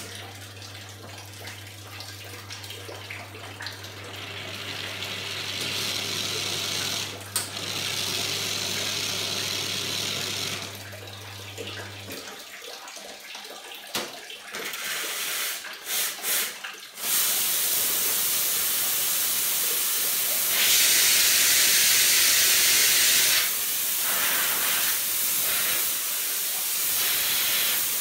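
Reneka Viva S espresso machine: its pump hums steadily for about twelve seconds after a group-head button is pressed, then stops. The steam wand is opened about fifteen seconds in, spluttering for a couple of seconds before settling into a loud, steady steam hiss.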